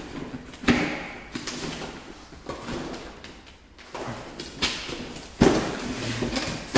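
Cardboard product box being handled, turned over and opened on a table: cardboard scraping and sliding, with several thumps, the loudest a little over a second before the end.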